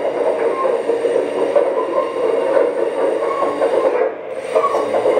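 1/14-scale Kabolite K970-200 RC hydraulic excavator running as its upper structure swings round: a steady mechanical grinding hum that dips briefly about four seconds in.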